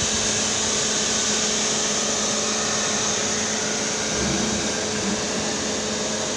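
Steady whirring machine noise with a constant low hum and a strong hiss. A brief low rumble comes about four seconds in.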